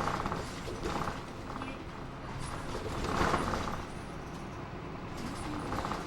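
Hino Blue Ribbon II city bus cabin creaking and rattling while it drives, over a steady running noise. There are short creaks at the start, about a second in, about three seconds in (the loudest) and near the end.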